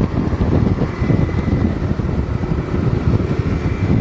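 Wind buffeting the microphone while riding a motor scooter, a steady rushing rumble with engine and road noise underneath.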